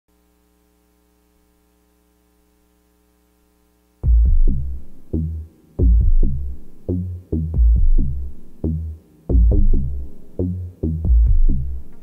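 Electronic music played on Moog analog synthesizers. A faint steady drone holds for about four seconds, then a loud pulsing pattern of deep synth bass and drum-machine hits comes in suddenly, each hit fading before the next.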